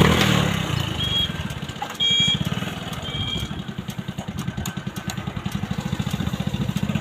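Hero Splendor+ 100 cc single-cylinder four-stroke motorcycle engine running, its firing pulses coming faster toward the end as it picks up revs. It opens with a loud burst, and a few short high chirps sound in the first half.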